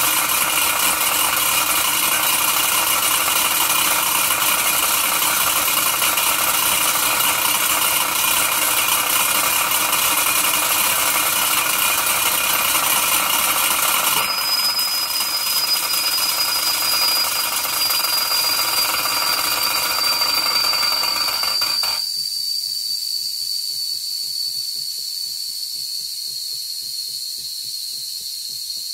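Wilesco D6 model steam engine running with a steady hiss. About halfway through, the boiler's steam whistle is opened and blows one high, steady note that slowly sinks a little in pitch. The engine's running noise stops sharply about three-quarters of the way through while the whistle keeps sounding.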